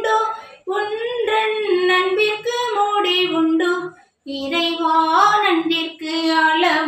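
A woman singing a Tamil hymn of thanksgiving solo and unaccompanied, in sustained phrases with short breaths about half a second and about four seconds in.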